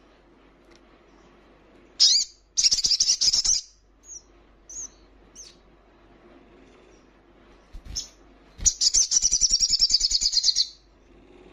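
Olive-backed sunbird singing: two loud bursts of fast, high chattering trills, about two seconds in and again near the end, with a few short single chips between.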